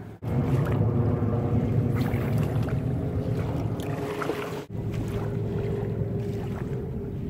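A boat motor running steadily: a low drone with a faint steady hum above it, broken by two brief dropouts, one just after the start and one about four and a half seconds in.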